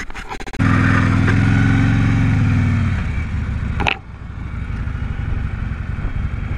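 Harley-Davidson Road King's V-twin engine running as the motorcycle pulls away: a loud, steady engine note that eases off about three seconds in. A sharp click comes just before four seconds, then the engine runs on more quietly.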